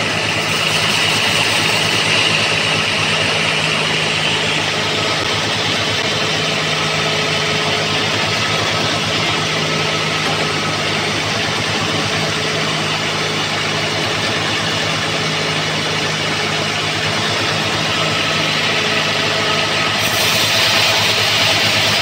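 Homemade band sawmill running steadily with a constant machine hum. Near the end the band blade starts cutting into an old rain-tree log, and the sound grows brighter and hissier.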